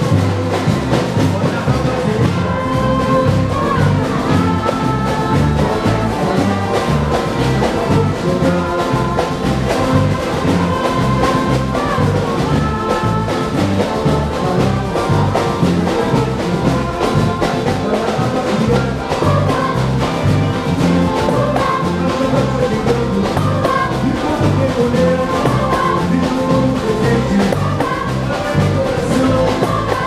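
Live samba-style carnival band music: large bass drums keep a steady, driving beat under a sung and played melody.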